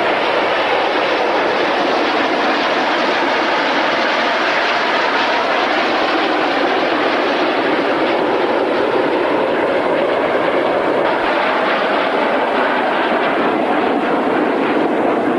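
Steady rushing jet noise from a formation of PZL TS-11 Iskra jet trainers flying overhead, even in loudness throughout.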